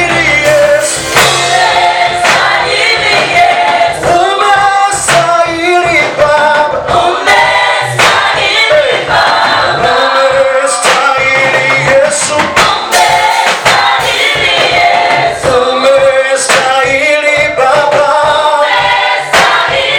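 Choir singing a gospel praise song over instrumental backing with a steady beat.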